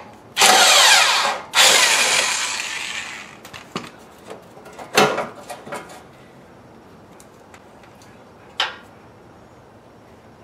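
Handheld corded power tool running in two bursts, the second winding down over a second or so, as it backs out the bolts holding a car's front bumper reinforcement bar. A few sharp knocks follow, the loudest about five seconds in.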